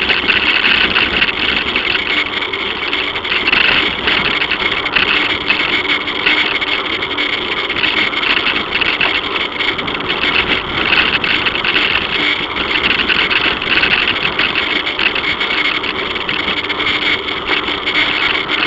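Steady rolling noise and light rattle of a bicycle riding over a concrete promenade, heard through an action camera carried on the bike, with a continual hiss and small jolts.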